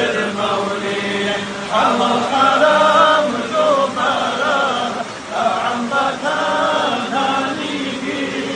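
Men chanting a devotional supplication to the Prophet together at a mawlid, with a lead voice carrying wavering melodic lines. A low held tone sounds under the voices for the first couple of seconds.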